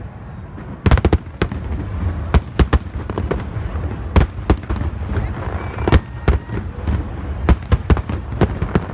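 Aerial fireworks display: a rapid, irregular string of sharp bangs from shells bursting, some in quick pairs, over a continuous low rumble.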